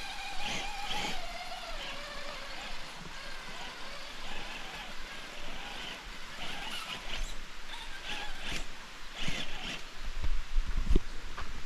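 Electric motors and gear drivetrains of two radio-controlled scale rock crawlers whining in bursts as they climb. The pitch falls over the first two seconds, and a couple of sharp knocks come late on.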